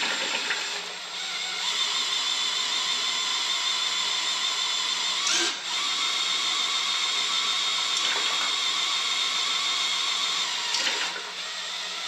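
Electric drill running steadily to spin the oil pump of a Ford 352 FE engine block, pumping fresh oil through the galleries to flush them. The whine dips briefly about a second in, midway, and near the end.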